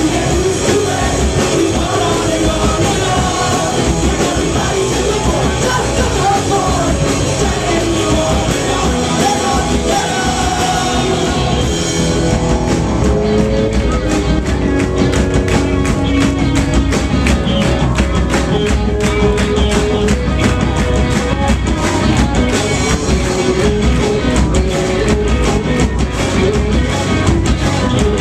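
Punk rock band playing live, loud and steady: electric guitars, bass and drum kit with a singer, heard from within the crowd.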